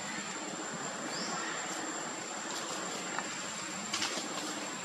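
Forest ambience: a steady, high-pitched insect drone over a general hiss. A short rising chirp comes about a second in, and a brief crackle of dry leaves about four seconds in, as a macaque scampers off.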